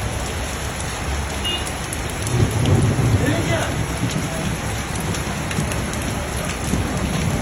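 Steady rain, with a low rumble that swells about two seconds in and fades after a second or so.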